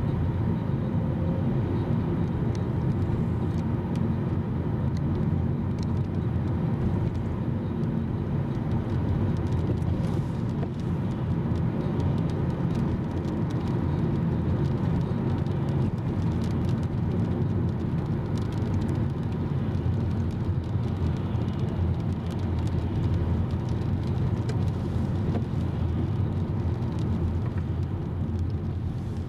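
Steady road and engine noise of a car travelling at highway speed, heard from inside the cabin.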